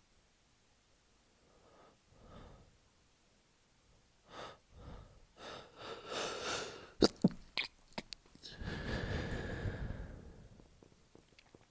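A man with a head cold sneezing: a few quick gasping in-breaths build up, then one sharp, loud sneeze about seven seconds in, followed by a few short snaps and a longer breathy exhale.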